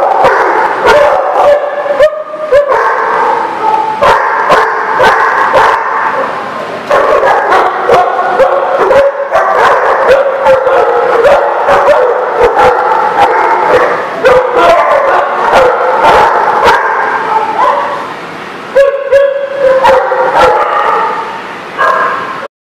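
Several dogs barking, yipping and whining at once, overlapping almost without a break, with a brief lull a few seconds before the end.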